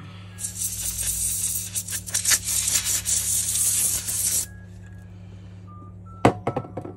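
Compressed-gas duster can blowing through its straw in a few uneven spurts for about four seconds, clearing debris from the inside of an opened phone. Near the end there is a sharp knock followed by a few lighter taps.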